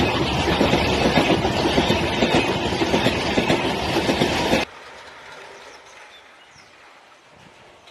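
Humsafar express's LHB passenger coaches passing close at speed: a loud rush of wind and rapid wheel clatter over the rails. It cuts off suddenly about four and a half seconds in, leaving only faint background sound.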